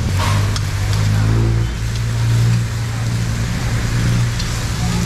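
Pork belly and sisig sizzling and crackling on hot sizzling plates over open gas burner flames, under a steady low motor hum.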